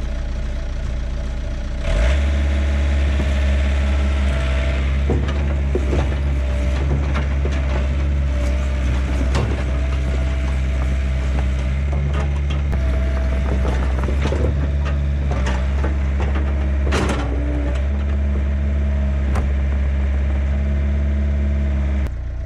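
Yanmar B50-1 mini excavator's diesel engine working under hydraulic load as the machine tracks, with scattered clunks from the undercarriage as a thrown rubber track is pulled back onto its rollers. The load comes on about two seconds in and drops off near the end.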